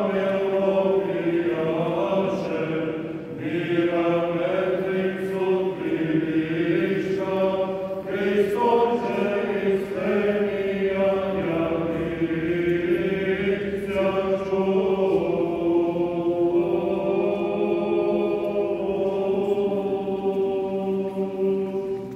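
Men's voices chanting an Orthodox church hymn in slow sustained phrases over a steady low held note, without instruments.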